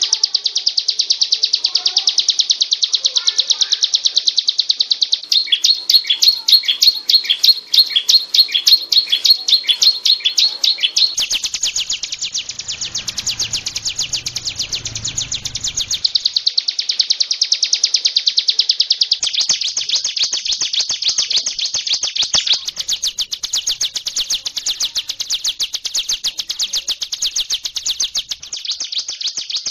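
Hill prinia (ciblek gunung) in full song: a long, unbroken run of fast, high repeated notes that switches phrase every few seconds. A low rumble sits under the song for several seconds about a third of the way in.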